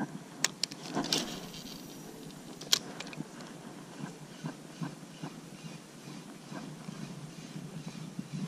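Spinning reel being cranked to retrieve the lure, ticking softly about three times a second, after a few sharp clicks in the first three seconds.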